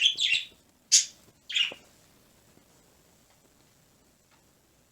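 Small pet bird chirping: a few short, high, downward-sliding chirps in the first two seconds.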